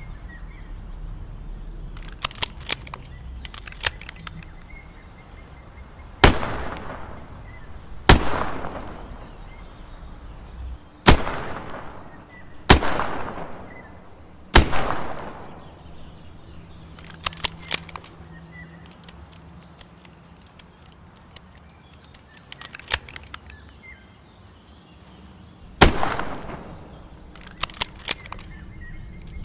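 Smith & Wesson 360J .38 Special revolver firing: five single shots spaced a second and a half to three seconds apart, each with a ringing tail, then one more shot after a long pause. Light metallic clicks come in short clusters between the shots.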